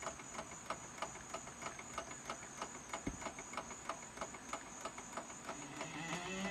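Faint regular ticking, about three ticks a second, over a thin steady high whine; a few low notes rise in steps near the end.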